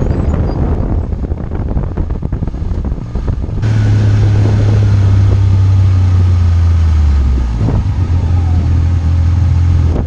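Arctic Cat Wildcat XX side-by-side's engine running as it is driven, heard from inside the cab, with many short knocks over the ground. About three and a half seconds in it changes abruptly to a louder, steady pull, which drops a little in pitch about seven and a half seconds in.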